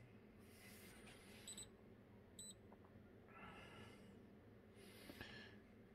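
Near silence: room tone, with two faint, very short high ticks or beeps about one and a half and two and a half seconds in.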